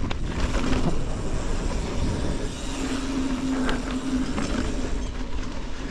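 Canyon Spectral full-suspension mountain bike rolling fast over a dirt forest trail: tyre noise and bike rattle mixed with wind buffeting on the helmet or chest camera, with a clunk right at the start and a steady hum for about two seconds in the middle.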